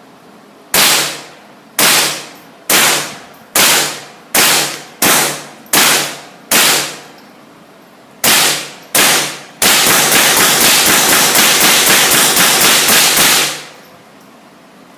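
Gunshots from a firearm: about ten single shots roughly a second apart, then a rapid string of shots at about seven or eight a second for some four seconds, ending abruptly.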